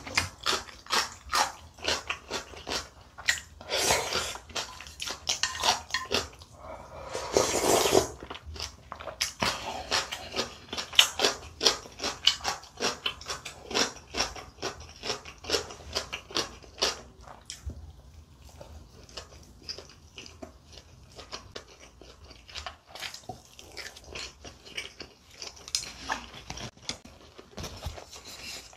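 Close-miked eating sounds: rapid wet chewing with two long slurps of spicy ramen noodles in the first eight seconds, then quieter, sparser chewing of a big mouthful of gimbap.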